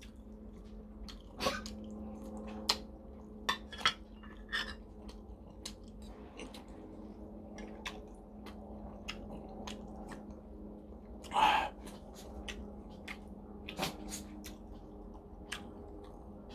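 Close-up eating sounds: chewing and mouth noises, with scattered sharp clicks of a metal spoon against ceramic bowls and one louder, longer noise about eleven seconds in. A faint steady hum runs underneath.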